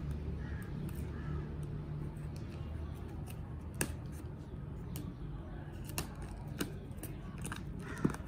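Scissors cutting through the tape and cardboard of a box, with a few sharp snips and clicks, the loudest near the end, over a steady low rumble.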